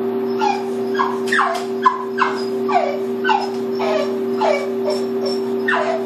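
Boxer dog whining, a rapid run of short high whimpers that each slide down in pitch, about two a second, as she strains toward food she can't reach. A steady low hum runs underneath.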